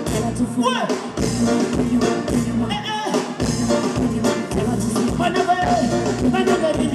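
Live band music with a woman singing lead into a microphone over bass guitar and keyboard, with a steady beat.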